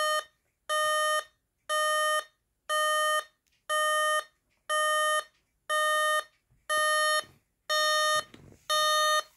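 Old electronic alarm clock with both of its alarms going off at once, the two tones combining into a third sound: a loud beep at one steady pitch, repeating about once a second, each beep lasting about half a second.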